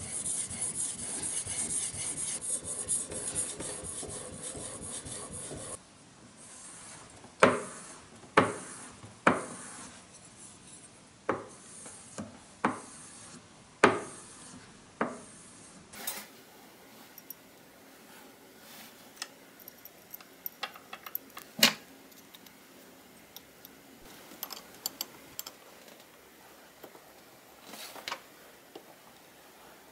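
A No. 4 plane iron rubbed back and forth on a combination waterstone, a steady scraping that stops about six seconds in. Then about eight separate strokes, roughly one a second, as the iron is stropped on a paddle strop charged with green compound, followed by scattered faint metal ticks at the cast-iron plane body.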